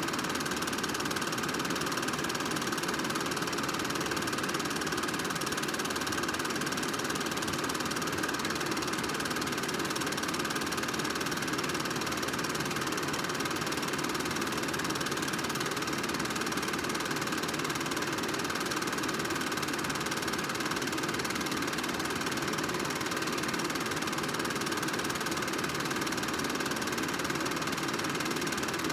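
Film projector running: a steady, unchanging mechanical running sound from its motor and film transport.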